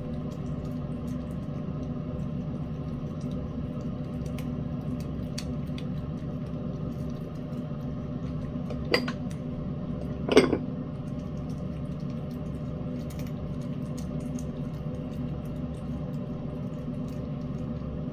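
A metal spoon knocks twice against a glass bowl, about nine and ten and a half seconds in, the second knock ringing briefly. Between them come soft small clicks of a cat eating wet pâté, over a steady low hum.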